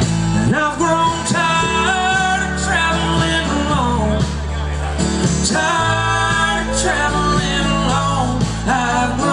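Live country-rock music from a stage band: a strummed acoustic guitar and a steady bass under a melody of long held notes that slide between pitches.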